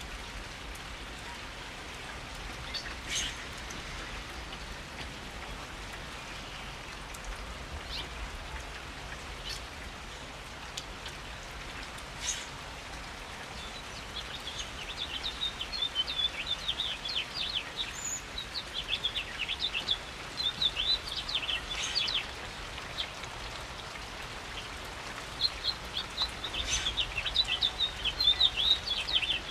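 Steady rain falling, with now and then a single louder drip. From about halfway through, a bird calls in quick runs of high chirps, twice, louder than the rain.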